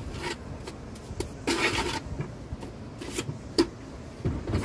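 Wind buffeting the microphone in a steady low rumble. A few knocks and a short scrape about one and a half seconds in, with a sharp click near the end.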